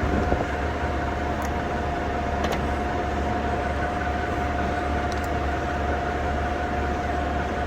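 Victor 1640B gap bed engine lathe running under power with its power cross feed engaged: a steady low hum and an even whine from the drive, with a few faint ticks.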